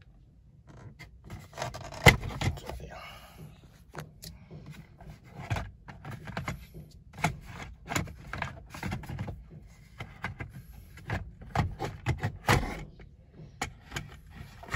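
Plastic dashboard trim of a Toyota Fortuner scraping, rubbing and clicking as the instrument-cluster bezel is worked loose from its clips by hand, with two louder clicks, about two seconds in and again about twelve seconds in.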